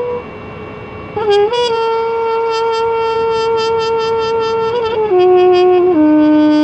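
Solo trumpet improvising in the Arabic Hijaz maqam. After a short breath-pause of about a second, it plays a few quick notes into a long held note, then steps down through two lower held notes near the end.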